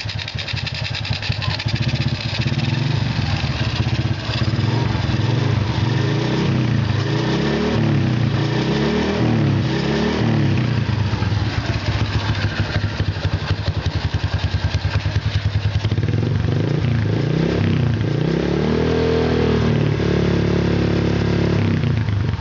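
Honda Wave 125's single-cylinder four-stroke engine, built with a 57 mm big bore, ported head and stage 1 cams, running through a KITTI racing exhaust. It idles, then is revved in short throttle blips several times around the middle and again near the end, the pitch rising and falling each time.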